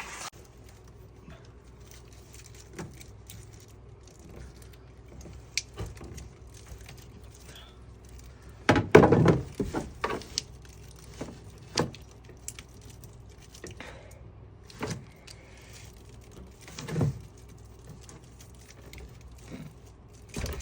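Scattered metallic clinks and knocks of hand tools and parts being handled while stripping a pickup's front end. There is a louder clattering burst about nine seconds in and single knocks every few seconds after it.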